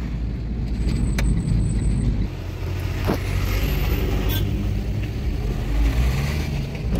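Truck engine running steadily with a low hum, with a couple of light clicks.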